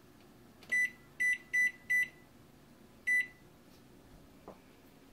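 Electronic oven control panel beeping as its keys are pressed to set the baking temperature and timer. There are four short, high beeps in quick succession about a second in, then one more about a second later.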